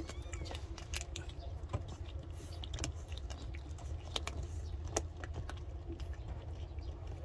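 Calico cat licking Churu paste from its tube, making quick, irregular wet clicking and smacking sounds over a low steady rumble.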